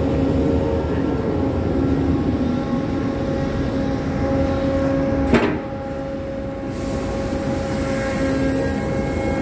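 Deck crane machinery running with a steady droning hum, a single sharp clank about five seconds in, then the hiss of wheat grain pouring from the opened clamshell grab into the barge's hold near the end.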